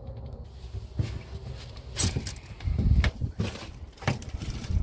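Scattered knocks and footsteps on a pickup truck's steel bed, over a low rumble.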